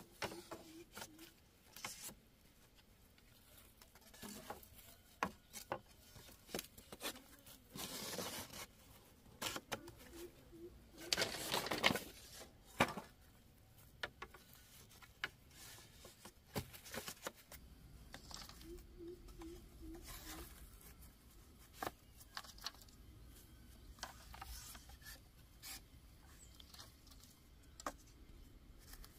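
Scattered light taps, knocks and scraping from hand work, with a longer, louder rustling scrape about eleven seconds in.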